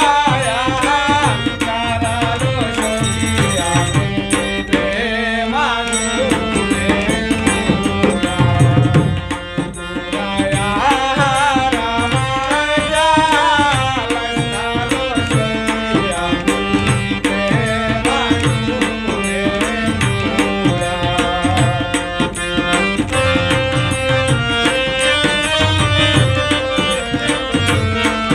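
Live Bengali song: a man singing over a harmonium's reedy held chords, with a hand-played two-headed barrel drum keeping a steady beat. The voice comes and goes between instrumental stretches.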